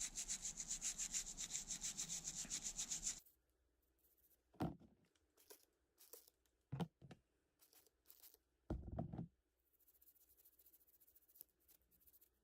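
Toothbrush scrubbing an alcohol-wet ESC circuit board to flush away solder flux, quick even strokes about five or six a second that stop about three seconds in. Then a few soft knocks of handling.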